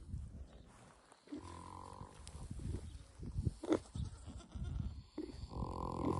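A sleeping pig snoring: a run of rough, low snorting breaths, with two drawn-out, whiny pitched snores, one about a second and a half in and one near the end.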